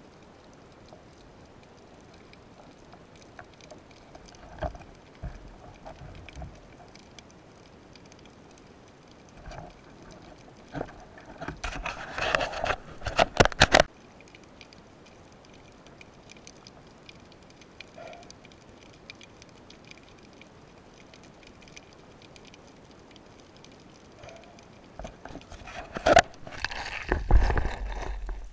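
Underwater sound through a diving camera's housing: a steady faint crackling hiss of the sea, dotted with clicks and knocks. Two loud clusters of rattling and knocking stand out, one cutting off suddenly about fourteen seconds in and another near the end.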